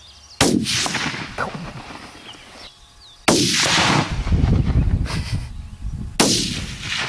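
Three centerfire rifle shots about three seconds apart. Each is a sudden crack followed by a rolling echo that dies away over a second or two, the middle one with a long low rumble.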